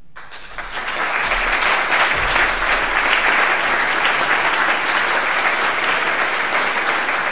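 Audience applauding: dense clapping that swells over the first second, then stays steady.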